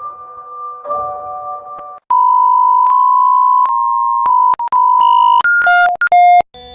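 Loud electronic alarm tone in the style of an Emergency Alert System attention signal: a harsh, steady beep held for about three seconds with small pitch steps and brief dropouts, then a quick run of short beeps alternating high and low. Soft synthesized keyboard chords play for the first couple of seconds before it.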